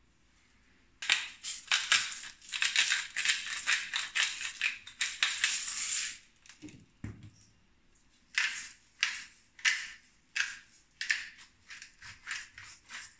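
Salt, then black pepper, ground onto an omelette from a spice mill: a dense run of rasping grinding strokes for about five seconds, a short low knock, then a slower series of separate grinding twists about two a second.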